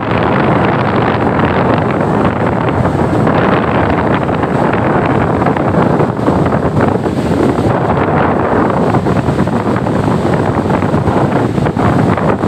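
Strong wind blasting the microphone over the steady rush of breaking surf.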